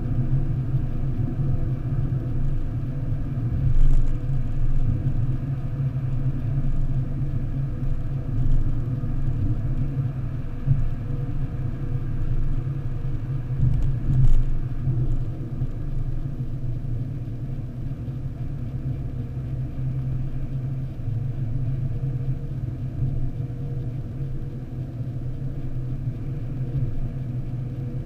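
Steady low rumble of a car's engine and tyres at motorway speed, heard from inside the cabin, with a brief thump a few seconds in and another about halfway through.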